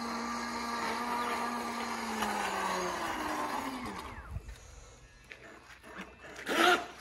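Small radio-controlled electric speedboat running with a steady motor whine and water swishing, then the pitch drops and the motor cuts off about three seconds in as the boat slows to a coast. Near the end, a short loud call.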